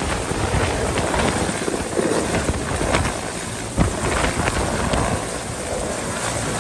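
Mil Mi-17 military transport helicopter descending to land, its main rotor and turbines running steadily close by.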